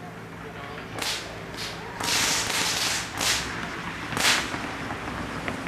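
Short spurts of hissing, five in all: a long one of about a second near the middle and the loudest and sharpest near the end. This is HHO gas, an electrolysis hydrogen-oxygen mix, hissing through the fill hose into a balloon.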